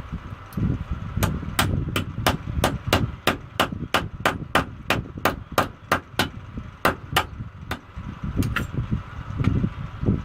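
A run of about twenty sharp, evenly spaced taps, roughly three a second, then a few scattered ones, over a steady low rumble.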